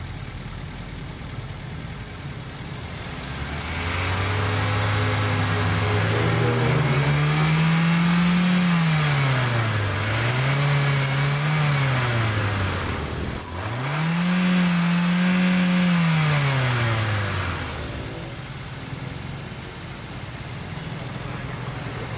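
Toyota Avanza four-cylinder engine idling, then revved three times from about four seconds in. Each rev rises smoothly and falls back, and the last is the highest. It then settles back to a steady idle near the end.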